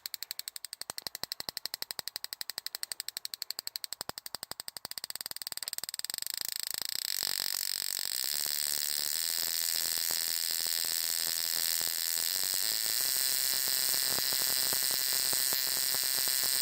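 Spark plug tester firing a plug: a rapid, even ticking of sparks that speeds up over the first several seconds until it merges into a steady buzz.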